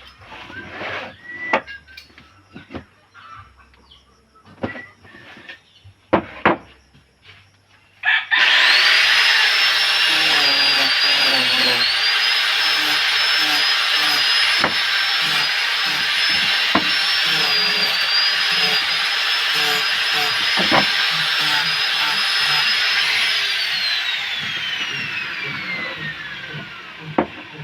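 Scattered knocks and taps of wood being handled, then about eight seconds in an electric power tool starts up with a high whine and runs for about fifteen seconds, its pitch wavering slightly. It is then switched off and winds down with a falling whine.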